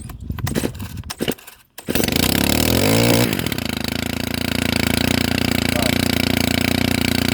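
Stihl FS130R strimmer's small 4-MIX engine starting after a few knocks, catching about two seconds in, revving up briefly and then settling to a steady run. It runs again now that its loose spark plug cable is reconnected.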